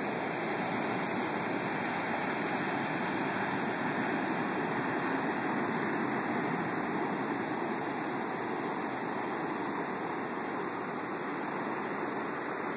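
Storm-surge surf breaking offshore and washing up a sand beach among rocks: a steady rush of broken water.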